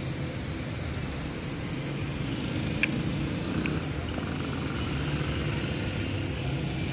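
Road traffic passing: a steady low engine rumble from cars and motorbikes. Two sharp clicks come about three seconds in.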